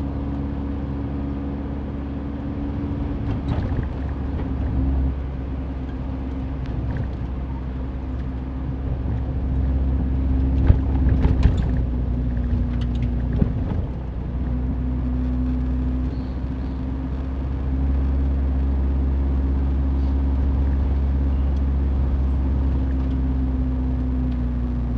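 Mazda Roadster driving, with a steady engine drone and road rumble. There are a few sharp knocks and rattles about halfway through, and the engine note eases off then picks up again a few seconds later.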